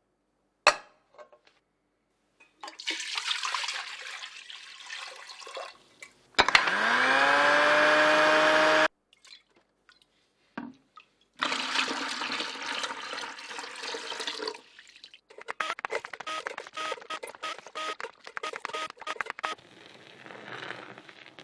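Liquid pouring, then an electric blender motor spins up and runs steadily for about two and a half seconds, frothing milk, before cutting off sharply. Foamy milk is then poured into a large plastic cup with a crackling, bubbling pour.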